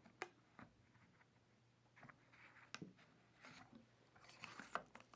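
Faint clicks and short plastic-on-carbon scrapes as a carbon fiber tripod leg section, fitted with plastic leg stoppers and guide sleeves, is slid into the upper leg section.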